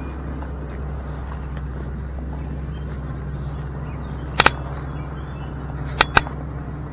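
Vehicle engine running with a steady low hum while driving slowly. Sharp knocks cut through it: a quick double knock about four and a half seconds in, and two more about six seconds in.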